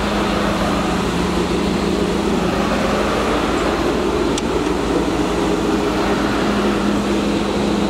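Ford F-150 pickup engine idling steadily, with a single click about four and a half seconds in.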